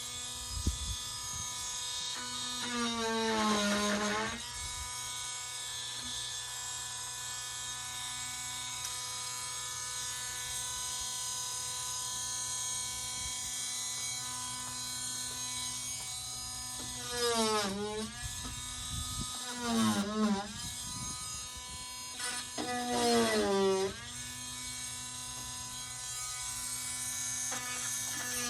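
Small handheld electric power tool running with a steady whine. Its pitch sags and recovers about four times (a few seconds in, then three times later on) as it bogs under load.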